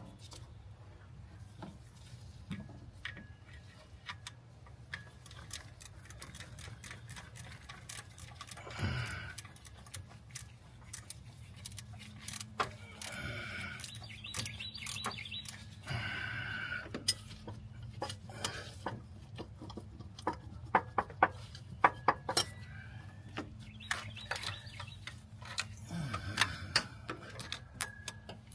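Metal hand tools clicking and clinking irregularly against engine parts over a steady low hum, with clusters of sharper clinks in the second half.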